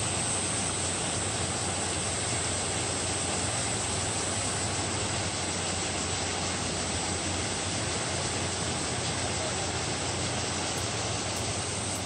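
Steady rush of running water from a rocky mountain stream below a waterfall.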